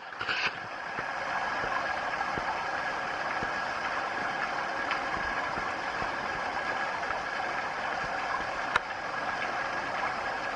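A waterfall rushing steadily, with one brief click near the end.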